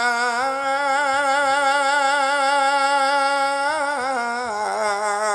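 Javanese sinden singing a slow, sustained vocal line with wide vibrato on long held notes, sliding down in pitch about four seconds in. A faint steady instrumental tone sounds beneath the voice for part of it.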